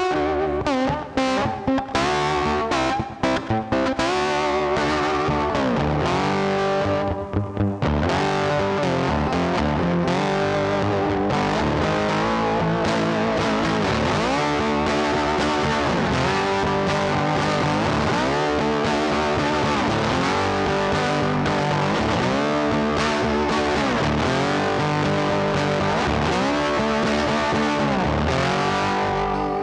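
Background music led by a distorted electric guitar, with bass and a steady beat; the first few seconds have choppy stops and starts.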